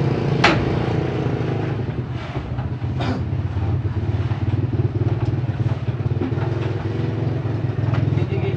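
An engine idling steadily, with two sharp knocks from speaker cabinets being handled and loaded onto a pickup truck, about half a second in and about three seconds in.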